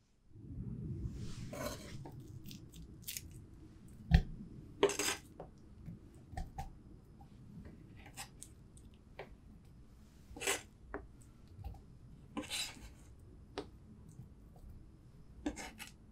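Banana slices being picked off a wooden cutting board and dropped into a glass tumbler. It gives soft knocks and clicks against the glass and board, a few brief scrapes, and a sharper knock about four seconds in, over a low handling rumble.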